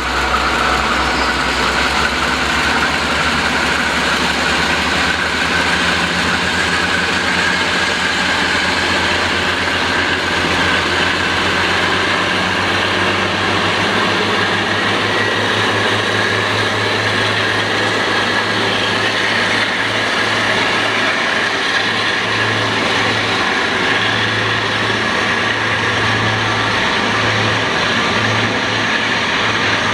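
An engine running steadily, with a low throb that starts to pulse partway through.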